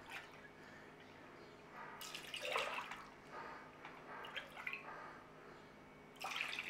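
Milk poured from a plastic bottle into a metal measuring cup over a stainless steel saucepan, the milk already in the pan; faint pouring and splashing that comes and goes several times.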